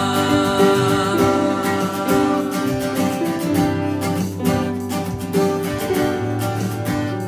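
Acoustic guitar strummed steadily through an instrumental break in a worship song, the chords changing every second or so, with a sung note held over at the start.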